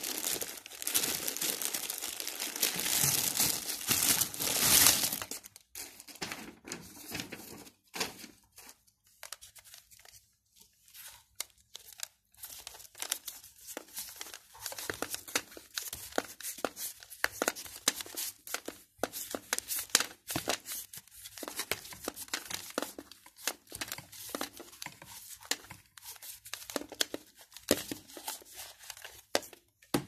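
Thin HDPE plastic bag crinkling and rustling as it is handled and pulled off a hair dryer. The crinkling is loud and continuous for about the first five seconds, then comes in short, scattered crackles.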